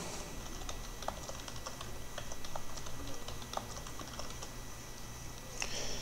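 Computer keyboard being typed on: light key clicks at an uneven pace.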